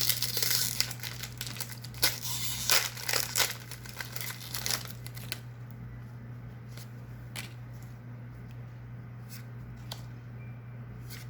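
Foil booster-pack wrapper crinkling and tearing as it is opened by hand, for about the first five seconds; after that it is quieter, with a few faint clicks.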